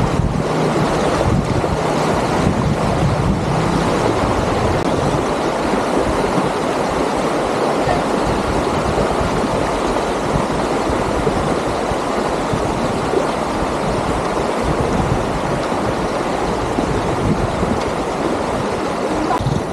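A shallow river's water rushing steadily over rocks, with some wind on the microphone.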